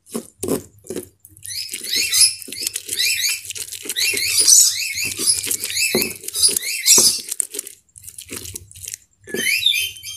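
Stone pestle grinding chili sambal in a stone mortar: fast, regular squeaky scrapes of stone on stone through the wet paste, with a few knocks at the start and a short lull near the end before the scraping resumes.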